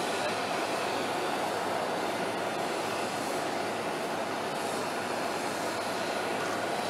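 Steady jet aircraft turbine noise: a constant hiss with a faint steady whine that does not change.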